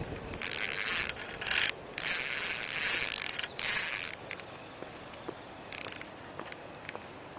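Fishing reel being cranked in several quick spurts, a loud whirring with a ratchety, mechanical edge, then a few faint clicks near the end.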